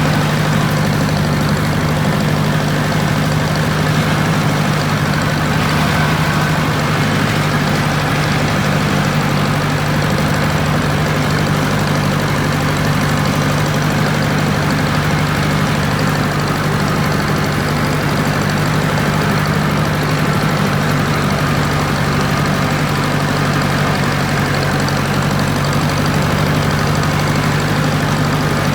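Ford farm tractor engine running at a steady idle, an even, unchanging hum.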